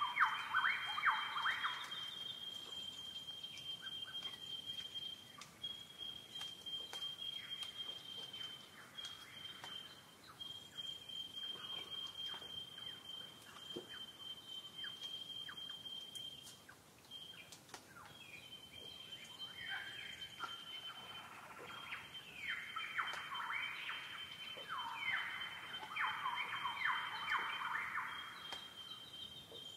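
Birds singing in bursts of rapid falling notes, near the start and again from about 19 to 28 seconds in. Over them runs a steady high, thin tone that breaks off now and then.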